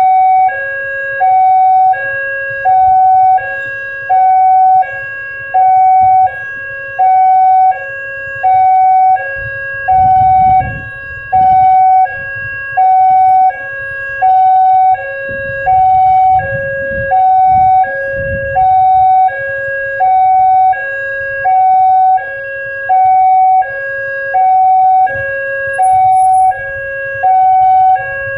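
Railway level-crossing warning siren sounding a steady two-tone hi-lo alarm, each tone held about 0.7 s, repeating without a break. A low rumble of something passing rises under it twice, about ten seconds in and again a few seconds later.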